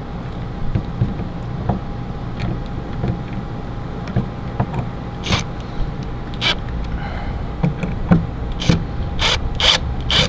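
Scattered sharp metallic clicks and taps of RV door latch hardware and screws being handled and fitted, mostly in the second half, over a steady background hum.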